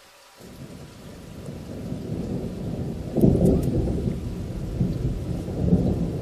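Recorded thunderstorm ambience: rain with low rolling thunder, fading in about half a second in and swelling into a louder thunder rumble about three seconds in.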